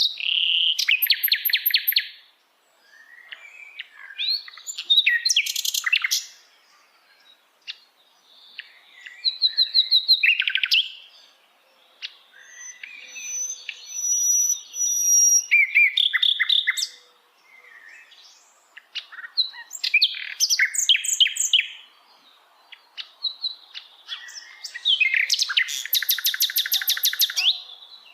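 Sikatan londo, a flycatcher, singing: varied high phrases with rapid trills, in bouts of one to three seconds separated by short pauses.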